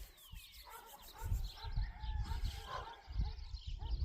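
Birds chirping and other animal calls in open countryside, with a thin falling call near the start and irregular low rumbling bursts throughout.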